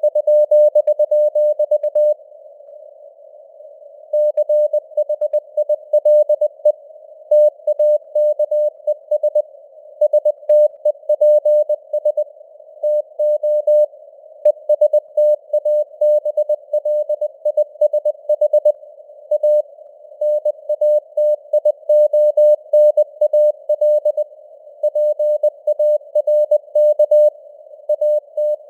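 Morse code sent at 20 words per minute as a keyed tone of about 600 Hz, heard in a narrow band of simulated radio hiss. There is a pause of about two seconds a couple of seconds in.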